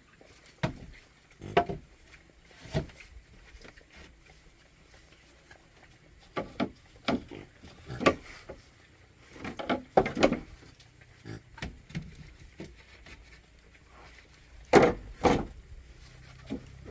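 Irregular knocks and clatter of wood being handled or struck, sharp single strikes spread unevenly, several in quick pairs.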